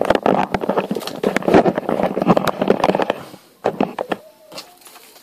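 A Hoover Dynamic Next washing machine scraping and knocking as it is shoved across the floor into a tight gap under the worktop. The noise stops about three seconds in and is followed by a few single knocks.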